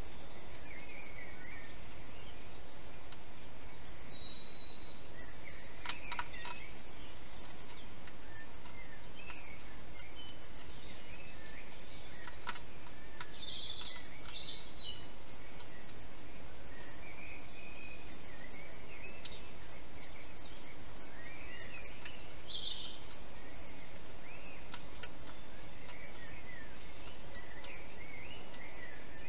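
Faint birds calling, short scattered chirps and warbles over a steady hiss, with a couple of brief sharp clicks.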